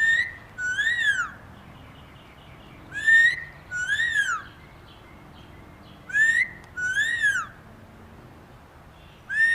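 Blue-fronted Amazon parrot whistling a two-note wolf whistle: a rising note, then one that rises and falls. It repeats three times, about three seconds apart.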